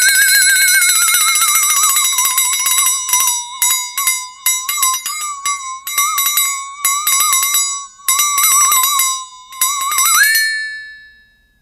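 A flexatone shaken so its beaters click against the bent steel blade, giving a wobbling metallic tone that rises, sinks and wavers through bunches of rapid clicks. Near the end the pitch slides quickly upward, holds and fades away.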